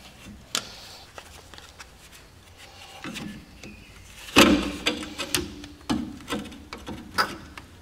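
Pliers working a handbrake cable free of a rear drum brake's shoe lever: scattered sharp metal clicks and rattles, with a louder burst of clicks about four and a half seconds in.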